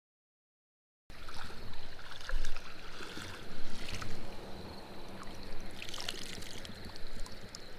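Silence for about the first second, then steps wading through shallow, flowing creek water: irregular splashes and sloshes over the steady rush of the current.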